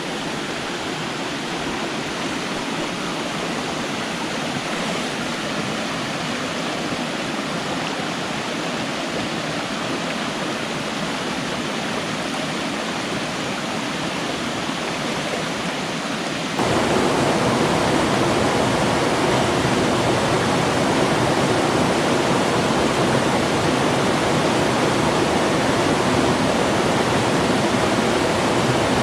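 Water of a small stream rushing steadily over cascades and little waterfalls. A bit over halfway through, the rush jumps suddenly louder and fuller and stays that way.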